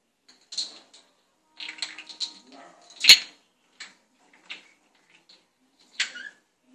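Plastic bottle cap clicking and skittering across a tiled floor as kittens bat it about: a scattered run of sharp taps, the loudest about three seconds in.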